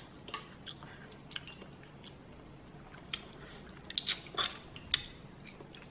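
A person eating Indomie instant noodles: faint chewing and small mouth clicks, then a short slurp of noodles about four seconds in.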